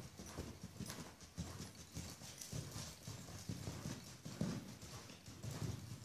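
Hoofbeats of a ridden paint cross gelding on soft arena footing: a steady rhythm of low, dull thuds, a few a second.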